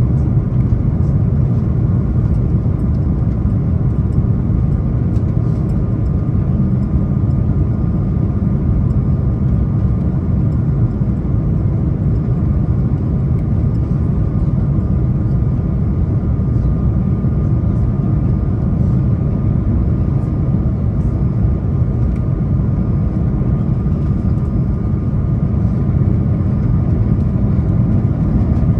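Airbus A340 cabin noise heard from a window seat over the wing on approach: a steady rush of airflow and the hum of its CFM56 turbofan engines, with a faint steady whine above it.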